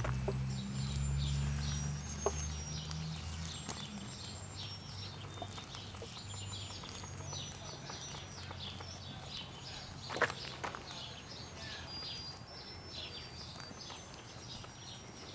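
Musical singing birthday candle playing its tinny, high-pitched electronic tune, one short note after another, amid light crackling and a sharp click about ten seconds in.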